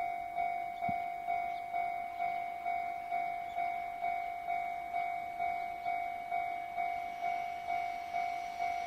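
Japanese level-crossing warning bell ringing, an electronic two-tone ding repeating evenly a little over twice a second. A rushing noise starts to build near the end as a train approaches.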